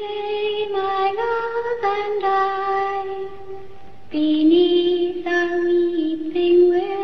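A lone high voice singing a slow melody in long held notes, with no accompaniment. It sings two phrases, the second starting lower about four seconds in.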